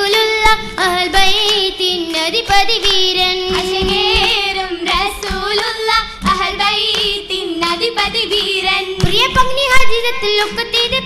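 Girls' voices singing a Mappila oppana song together, with sharp hand claps keeping the rhythm.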